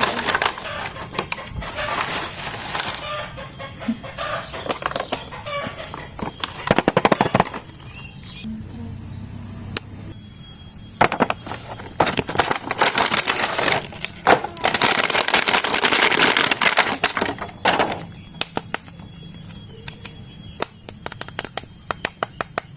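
Plastic toy packaging crinkling and rustling in uneven bursts, with many sharp clicks and taps as a plastic action figure and its box are handled. A faint steady high whine sits underneath.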